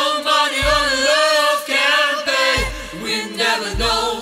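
A song: a woman singing over layered choir-like vocal harmonies, with a few deep bass hits.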